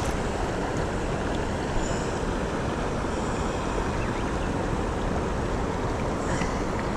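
Steady rushing of a river's main current flowing around the angler, an even noise that holds level throughout.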